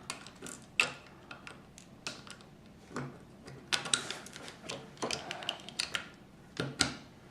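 Plastic LEGO pieces being handled and pressed together: scattered sharp clicks with light rattling and rustling between them.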